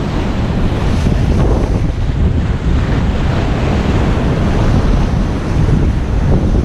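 Strong wind rumbling loudly and steadily on an action camera's microphone, over the rush of water and surf as the kiteboard rides the waves.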